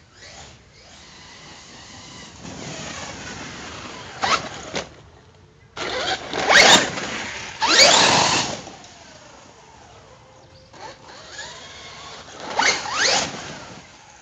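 Hobao Hyper ST Pro RC truggy's brushless electric motor whining and rising in pitch in repeated bursts of acceleration. The loudest bursts come about halfway through.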